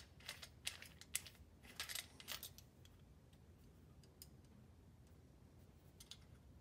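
Small clicks and light scrapes of a TIG torch's ceramic cup and brass gas lens being handled, twisted off and refitted on the torch head. A quick run of clicks in the first couple of seconds, then only a few faint ticks.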